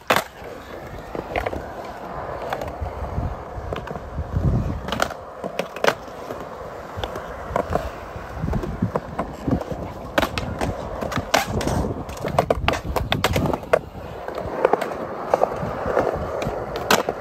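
Skateboard wheels rolling on smooth concrete, broken by many sharp clacks of the board popping and landing. A run of them comes close together midway.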